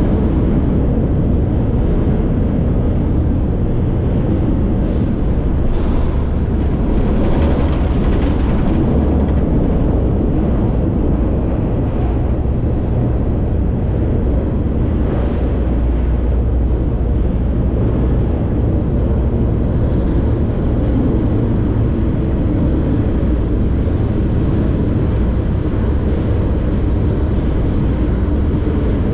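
Freight train running steadily on the rails, heard from aboard one of its cars: a loud, continuous low rumble that turns briefly brighter about seven seconds in.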